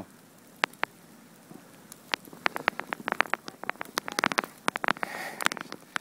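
Footsteps crunching through deep fresh snow: a few scattered crunches at first, then a dense run of them from about two seconds in.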